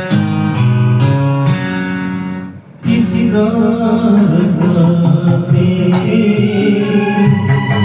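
Instrumental introduction of a Hindi film song, with a brief dip about two and a half seconds in before fuller music comes in.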